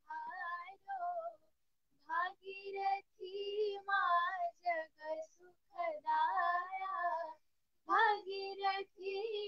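Two girls singing a Bhojpuri devotional hymn to the Ganga without accompaniment, through an earphone microphone. The voices come in sung phrases, cut by short silent breaks.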